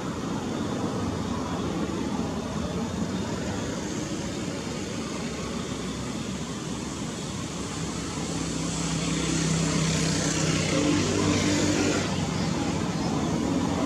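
Steady road traffic noise, with a motor vehicle passing close by from about eight seconds in: a steady engine hum and tyre hiss that grow louder towards the end.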